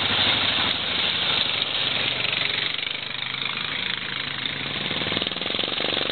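Engines of off-road vehicles on a dirt trail: a quad bike (ATV) passes close and fades, then a dirt bike's engine comes closer and grows louder near the end.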